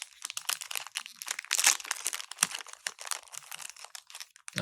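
A Pokémon card pack's plastic wrapper crinkling as it is handled, in quick irregular crackles that are loudest about one and a half and two and a half seconds in.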